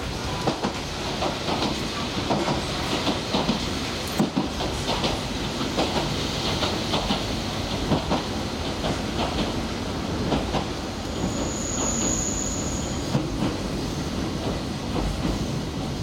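Electric local train heard from inside the carriage while running: a steady rumble with irregular clicks of the wheels over the rail joints. A brief thin high squeal comes about three-quarters of the way through.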